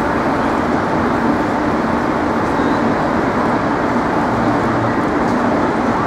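Steady city traffic noise, an even wash with no single vehicle or event standing out.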